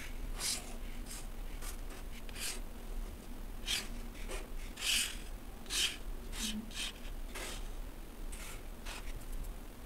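Fingers pressing, rubbing and crumbling molded kinetic sand shapes: a string of soft, irregular crunching strokes, a few louder ones about five and six seconds in.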